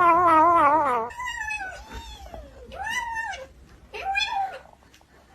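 A cat's long yowl with a wavering pitch, ending about a second in, followed by three short meows that each rise and fall in pitch.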